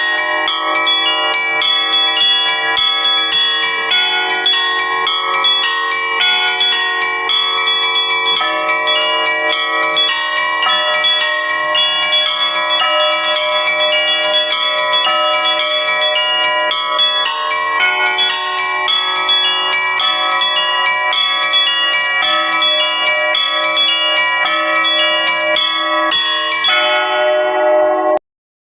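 Russian Orthodox church bells ringing: many bells of different pitches struck in a continuous, busy peal that cuts off abruptly near the end.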